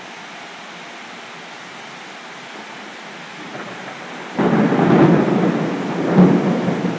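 Steady rain falling, then a sudden loud clap of thunder about four seconds in that rolls on, swelling again a second or so later.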